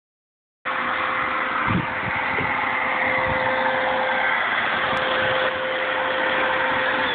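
Steady, loud buzzing of a mass of honey bees flying around an opened hive: robber bees taking the spilled honey. It starts just under a second in.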